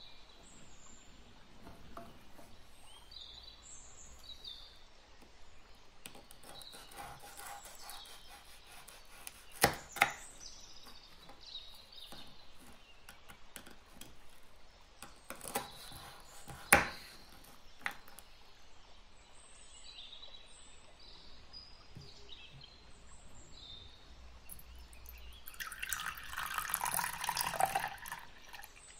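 A few sharp knife clicks on a wooden cutting board while ladyfinger biscuits are cut, then liquid poured into a ceramic bowl for a couple of seconds near the end. Faint bird chirps throughout.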